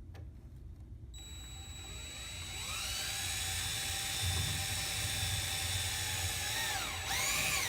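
Cordless drill/driver running a screw into the wall: its motor whines up to speed, runs steadily for several seconds, then slows and speeds up again in a short burst near the end before stopping.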